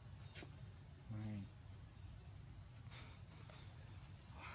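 Steady high-pitched buzz of insects, with a short voice sound about a second in and a few faint ticks.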